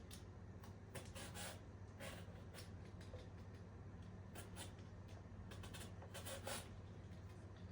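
Faint, scattered rustles and light scrapes of things being handled by hand, over a low steady hum.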